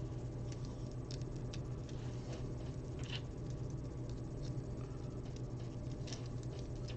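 Small plastic Lego pieces being handled and fitted together: a few faint, scattered clicks and taps over a steady low hum.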